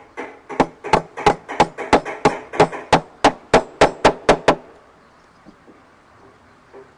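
Hammer driving 1-inch nails into the wooden box: about fifteen sharp blows at roughly three a second, stopping about four and a half seconds in.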